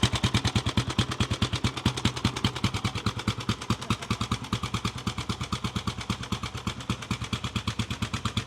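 1936 Benelli 250's single-cylinder engine running steadily at low revs, its exhaust popping in an even beat of about eight pulses a second.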